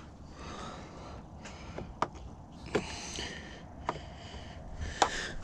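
Scattered sharp clicks and knocks, about five over a few seconds, from hand work on a car's plastic door trim panel and its clips, over a steady hiss.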